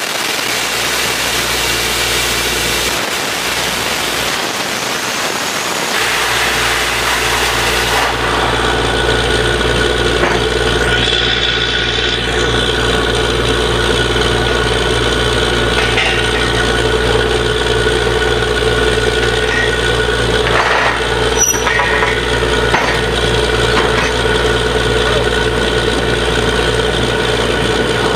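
Borewell drilling rig's engine running steadily. A broad hiss lies over it for the first eight seconds or so, then stops, leaving the steady machine hum.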